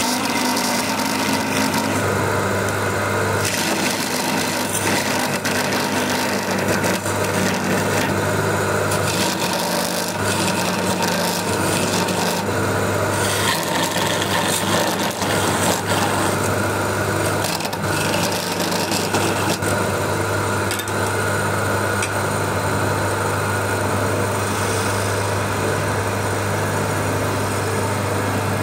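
Hand-held chisel shaving a spinning wooden spindle on an electric lathe: a continuous scraping hiss of wood being cut, over the lathe motor's steady low hum.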